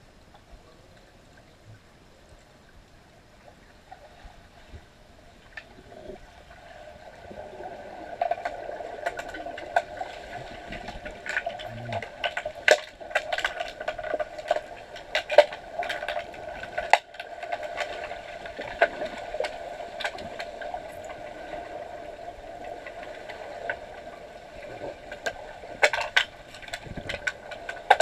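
Underwater hockey play heard underwater: sharp clicks and knocks of sticks and the puck against each other and the tiled pool floor, coming in from about eight seconds and thickest in the middle and near the end, over a steady hum.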